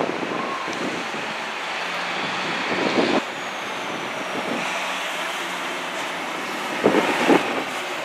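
Outdoor street noise on a windy day: wind and traffic making a steady rush, with two louder swells about three seconds in and near seven seconds.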